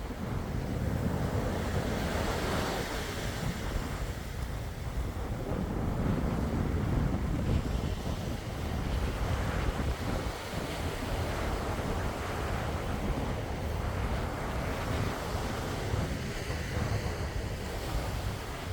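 Sea waves breaking and washing in, the surf rising and falling every few seconds, with wind rumbling on the microphone.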